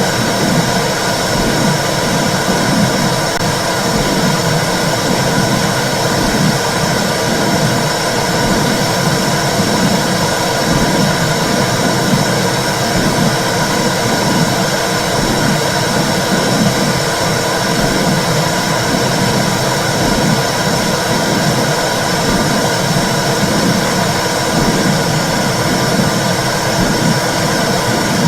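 Womb sound for soothing babies: a loud, steady rushing hiss with a low whooshing pulse repeating roughly once a second, like blood flow and a heartbeat heard from inside the uterus.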